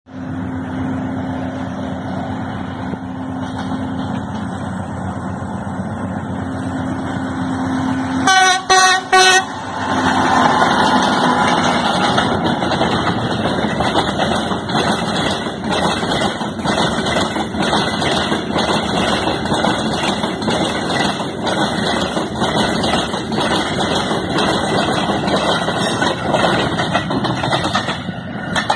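TGM8KM diesel locomotive running steadily as it draws near, sounding two short horn blasts about eight seconds in, then the loud rolling clatter of the locomotive and works train passing close by.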